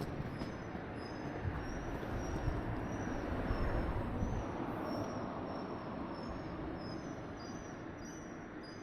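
A rail vehicle passing: a steady rumble that swells a few seconds in and then fades away.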